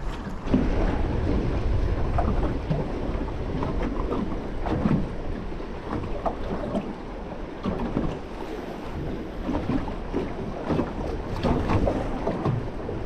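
Wind buffeting the microphone over water slapping against the hull of a small aluminium boat, with scattered small knocks.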